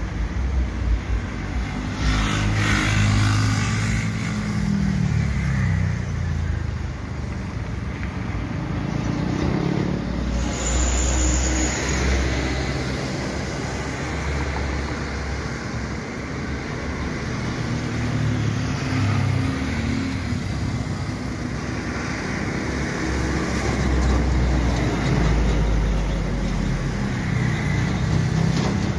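Airbus A320's twin CFM56 jet engines through a landing: the low rumble of the approach, then the roll-out along the runway. The sound swells and eases several times.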